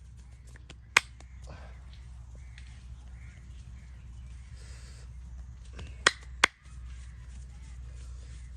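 Sharp snapping cracks from a hands-on head and back massage: one about a second in, then two close together about six seconds in, over a low steady hum.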